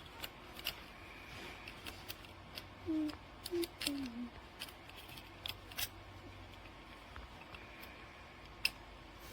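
Irregular sharp metallic clicks and ticks from a Master Lock 389DAT trailer coupler lock being worked by hand, an attempt to pick it open without the key.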